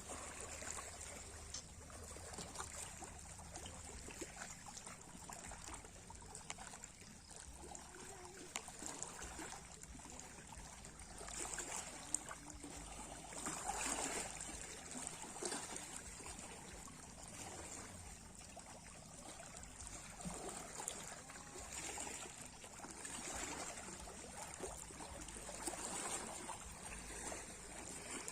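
Sea waves washing and trickling at the shore, a faint steady wash of water that swells several times, loudest about halfway through.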